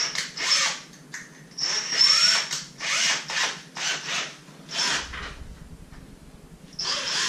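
Cordless drill run in short trigger bursts, its motor whining up to speed each time, with a longer run near the end as it widens a hole.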